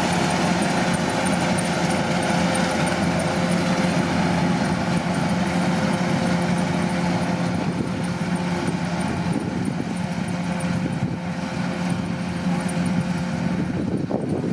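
Kubota DC-105 combine harvester running with a steady machine hum. About a second before the end the steady tone drops away and the sound turns rougher.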